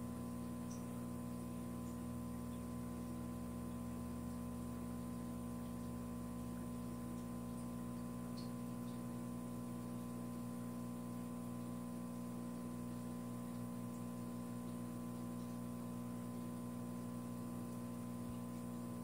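Steady low electrical hum made of several even tones, unchanged throughout.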